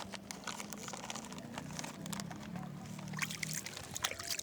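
River water lapping and splashing at the bank in quick, irregular splashes. A low hum joins in about two seconds in and lasts about a second and a half.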